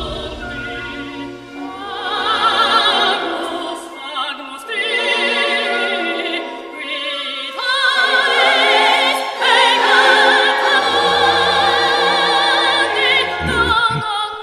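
Operatic singing with strong vibrato, long held notes over orchestral music.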